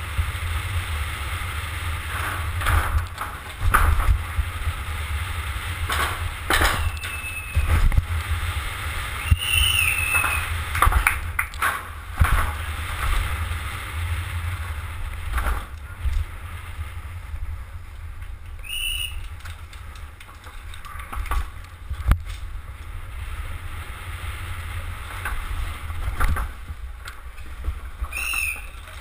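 Downhill mountain bike descending at speed: wind buffets the bike-mounted camera's microphone with a steady low rumble, with tyre noise and frequent sharp knocks and rattles over bumps and ramps, and a few brief high squeals.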